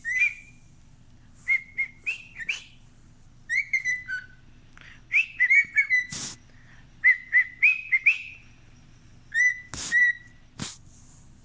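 Cockatiel whistling short phrases of a tune in quick groups of repeated notes, some sliding upward. A few sharp clicks cut in around the middle and near the end.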